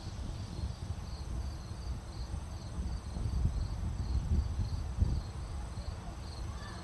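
A cricket chirping steadily, about two short high chirps a second, over a low, uneven rumble of wind on the microphone.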